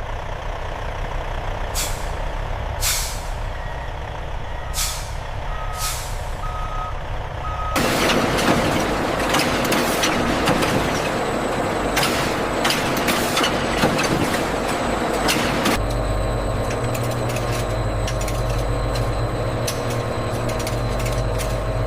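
Factory machinery running: a steady hum with sharp hisses of air and four short beeps about a second apart. Partway through, a louder rushing noise takes over for several seconds, then it settles into a steady low drone.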